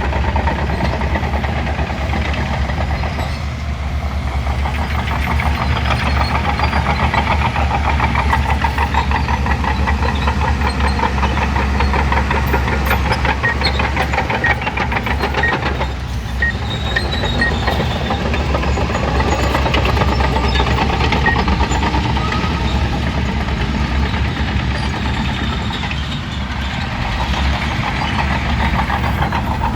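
Diesel engine of a Shantui crawler bulldozer running steadily, its level dipping briefly three times.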